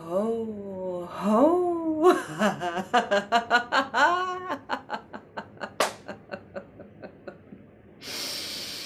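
A woman laughing heartily in a laughter yoga exercise. First come long hooting calls that swoop up and down, then a fast run of ha-ha pulses, about five a second, that trails off. A long breathy hiss of breath follows near the end.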